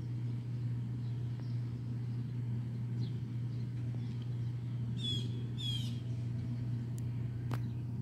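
Two short, high whistled calls of black-bellied whistling ducks about five seconds in, over a steady low mechanical hum.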